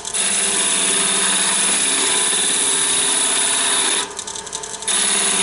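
Turning tool cutting a spinning wood blank on a lathe: a steady hiss of shavings coming off over the lathe's hum as the blank is taken down in diameter. About four seconds in the cut eases to a lighter, chattering scrape for under a second, then the full cut resumes.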